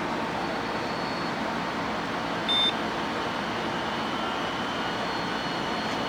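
Laptop power-on with a single short, high beep about two and a half seconds in, over a steady hum. From about three seconds a faint high whine rises slowly as the hard drive spins up.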